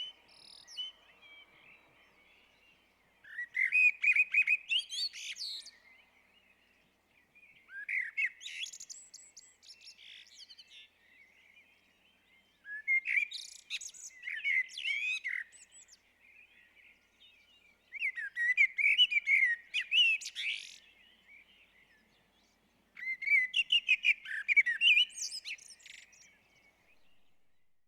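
A blackbird singing: five separate warbling song phrases, each two to three seconds long and about five seconds apart, with quiet pauses between. Each phrase mixes lower whistled notes with higher, thinner twittering.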